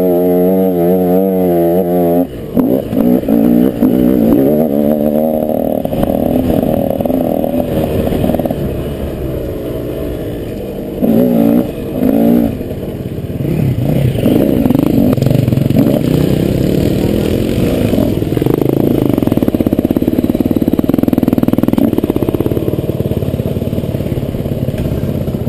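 KTM SX 125 single-cylinder two-stroke motocross engine revving high, then backing off about two seconds in. It then runs at lower, uneven revs with two short throttle blips around the middle and a steadier part-throttle run after.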